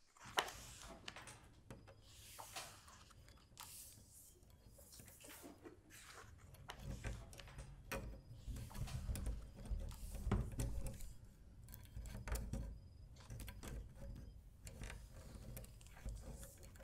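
Faint clicks and small knocks of someone working at a wooden cabinet door, over a low steady rumble that swells from about six seconds in.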